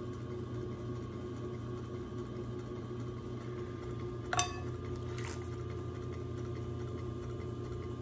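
Electric potter's wheel running steadily with a constant motor hum while clay is shaped on it. About four seconds in there is a single sharp click with a short ring, and a fainter tick a second later.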